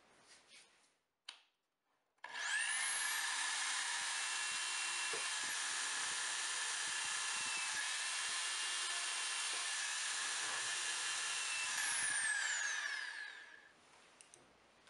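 Electric hand drill in a drill-press stand spinning up about two seconds in and drilling a small hole in plywood with a steady whine for about ten seconds, then winding down near the end.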